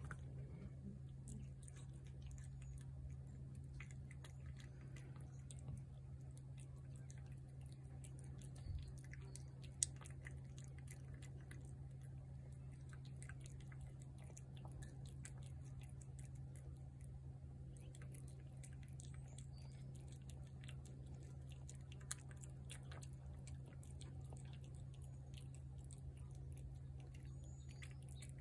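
A cat eating wet cat food from a plate: faint, irregular wet chewing and smacking clicks, with a couple of sharper clicks standing out. A steady low hum sits underneath.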